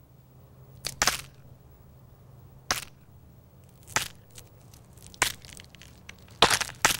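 Sharp cracking and crunching snaps: a few spaced out over the first five seconds, then coming thick and fast near the end, over a faint steady low hum.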